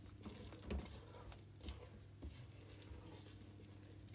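Faint, irregular soft squelches and scrapes of a spatula folding thick blondie batter studded with white chocolate chunks in a stainless steel mixing bowl.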